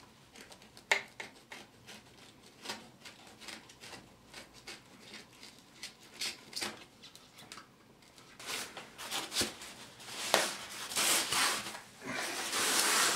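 Closed-cell foam pipe insulation being cut around the pipe at the top of a plastic duct: short scratchy cutting strokes and clicks. Near the end, louder rubbing and swishing as the cut-off foam sleeve is slid up the MDPE pipe.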